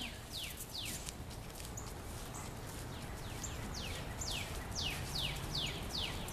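A bird calling in the trees: a long run of short, quick chirps, each sliding down in pitch, coming a little faster towards the end. A steady outdoor background hiss runs underneath.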